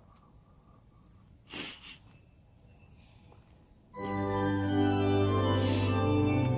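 Cathedral pipe organ coming in suddenly about four seconds in and playing loud held chords, after a few seconds of quiet with one brief soft noise.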